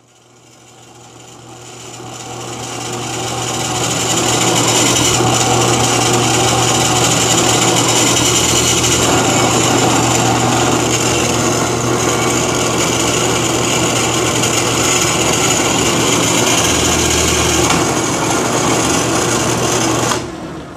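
Drill press running, its bit boring through a short section of PVC pipe clamped in a vise: a steady motor hum under the cutting noise. It swells over the first few seconds, holds steady, and stops near the end.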